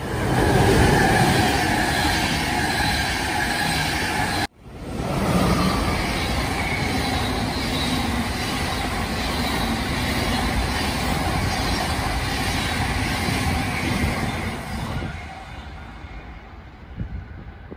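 Passenger trains passing through a station: steel wheels rumbling and clattering on the rails, with a faint high squeal riding over the noise. A cut about four and a half seconds in switches to a second, long train of coaches, whose noise fades away near the end.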